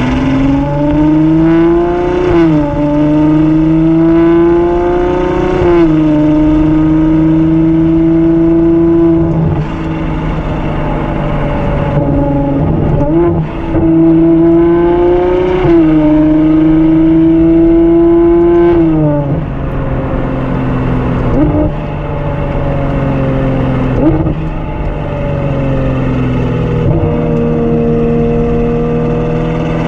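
Ferrari 812 GTS's naturally aspirated V12 pulling hard through the gears. The engine note climbs steadily in each gear and falls sharply at each upshift. Later there are quick blips, with the pitch jumping up briefly on downshifts.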